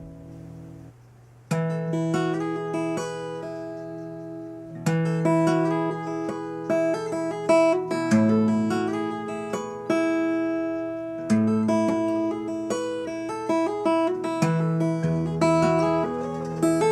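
Background music: acoustic guitar picking chords, strongly rhythmic, with the notes ringing on.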